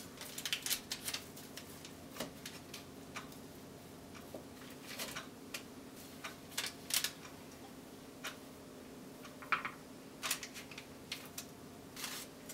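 A knife clicking and tapping against a plastic cutting board at irregular intervals as a slab of gooey brownies is cut into small squares, with pieces set down on a wire cooling rack. A steady low hum runs underneath.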